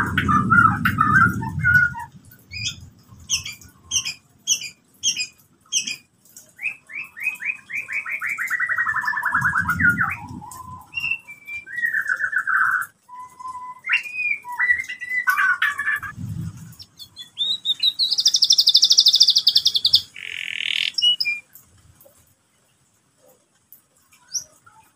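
Domestic canary singing in varied phrases: quick runs of repeated chips, fast trills sliding down in pitch, and a high buzzing roll, with short pauses between phrases and a few seconds of silence near the end. A few low thumps sound under the song, the loudest at the start.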